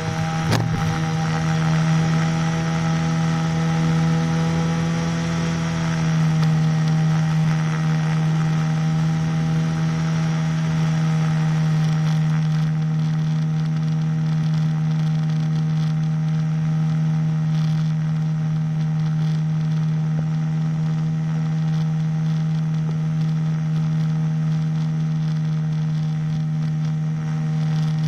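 Small single-cylinder engine of a powered hang glider running steadily at high power with its propeller during takeoff and climb, its pitch easing slightly about five seconds in, with wind rush over the microphone. A sharp click about half a second in.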